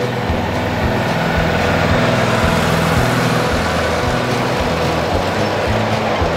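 Background music with a stepping bass line, over the steady rumble and hiss of a ride-on miniature train rolling past on its backyard track. The train noise swells as it comes close about two seconds in.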